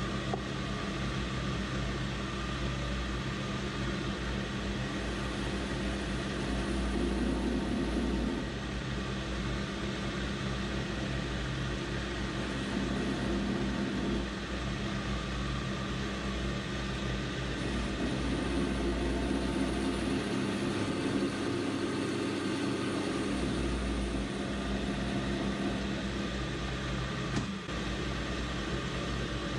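AL960B metal lathe running with the chuck spinning a metal shaft, a steady motor and gearbox hum. Two stretches of rougher, louder noise as the tool cuts, the longer one past the middle, and a single click near the end.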